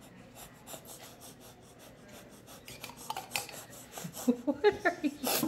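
Metal spoon scraping pizza sauce out of a glass jar: faint small ticks at first, then a quick series of louder rasping scrapes in the second half.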